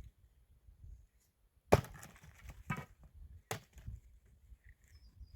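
Firewood being chopped: three sharp wooden strikes about a second apart, the first the loudest.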